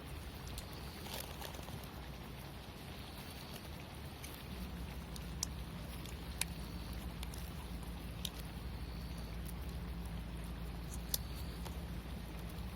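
Wood campfire burning with a few sharp isolated pops over a low steady rumble, which gets a little louder about four seconds in.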